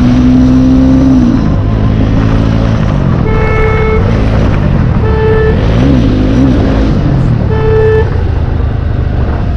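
Motorcycle running with its exhaust removed as it is ridden, the engine note dropping about a second in and later rising and falling. A horn gives three short beeps.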